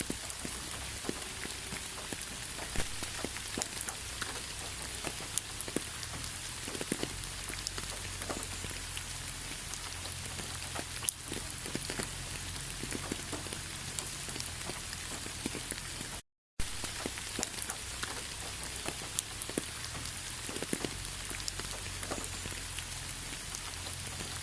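Steady rain falling: a constant even hiss with many single drops ticking close by. The sound cuts out to silence for a split second about sixteen seconds in.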